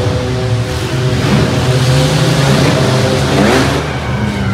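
Several mini-truck engines running and revving in a demolition derby, over a steady low engine drone. One engine revs up about three and a half seconds in, and the sound echoes in a large indoor arena.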